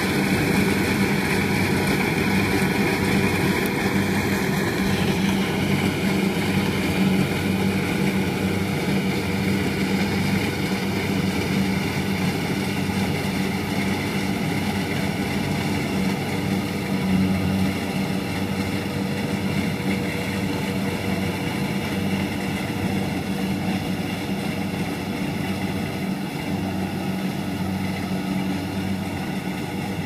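Kubota combine harvester's diesel engine running steadily under load as it cuts rice, slowly growing quieter as the machine moves away.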